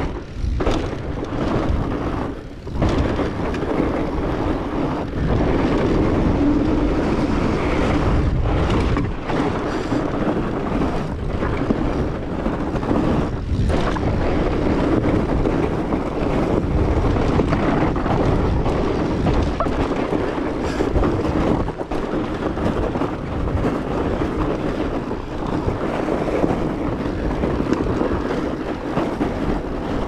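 Rocky Mountain Blizzard fat bike riding over a packed-snow trail: a continuous rumble of the wide studded tires rolling through snow, with wind noise on the microphone and a few brief lulls.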